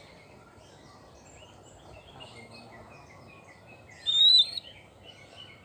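White-rumped shama singing: faint scattered chirping notes, then one short, loud whistled phrase about four seconds in.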